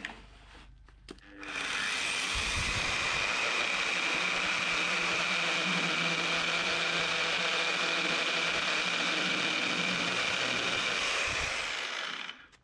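Festool Univers electric chain saw starting about a second and a half in and running steadily as it cuts through an oak purlin, a constant high whine over the cutting noise, then winding down shortly before the end.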